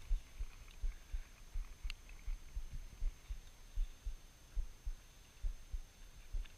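Low, irregular thumping on the camera's microphone, about two or three thumps a second, over a faint steady high-pitched whine, with a single click about two seconds in.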